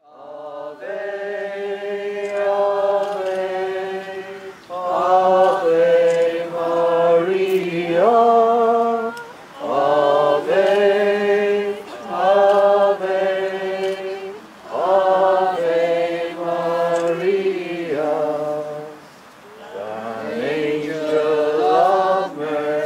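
A group of people singing a Marian hymn unaccompanied, in phrases of four or five seconds with short breaks for breath between them.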